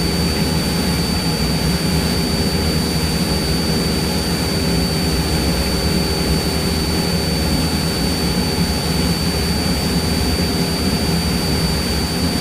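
Cessna 172's piston engine and propeller droning steadily in flight, heard from inside the cockpit, with a thin steady high whine above it.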